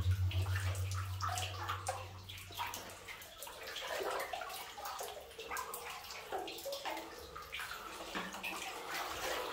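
Water sloshing and splashing as a person wades through chest-deep water in a flooded mine tunnel, with scattered drips landing on the surface. A low steady hum fades out in the first two seconds.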